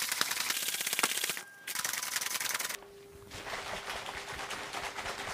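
Shaker bottle of whey protein powder and water shaken hard, a fast, even clatter of knocks. It breaks off briefly about a second and a half in and again near three seconds, then goes on more softly.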